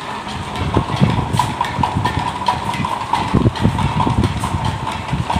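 Ceiling fan running at full speed and shaking, thrown off balance by a mobile phone fixed to one blade, making rhythmic low thumps. Over this, the phone's ringtone rings with a pulsing tone as it spins on the blade, showing that the incoming call has connected.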